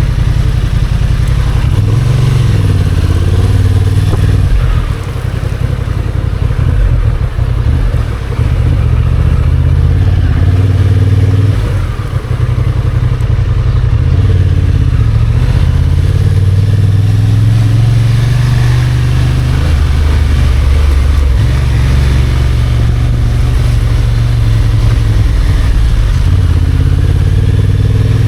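Motorcycle engine running under way, the engine note dipping briefly about five, eight and twelve seconds in, then holding steady.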